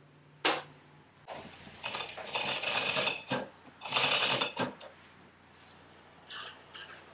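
Loose metal hardware clinking and rattling: a single sharp click, then two bouts of jangling about a second long, with a few softer knocks near the end.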